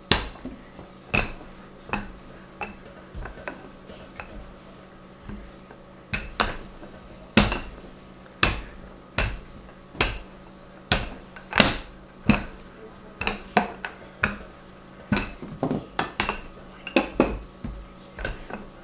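Wooden rolling pin rolling out dumpling dough, giving a short, sharp knock or clack at almost every back-and-forth stroke, about one to two a second.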